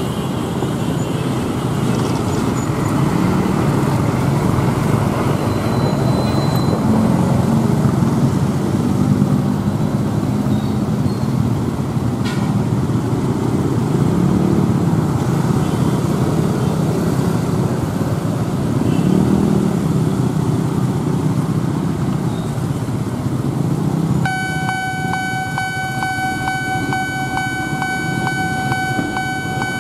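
Road traffic running past the crossing, then about 24 seconds in the railway level crossing's electronic warning alarm starts: a steady ringing tone pulsing rapidly, warning of an approaching train as the red flashers come on.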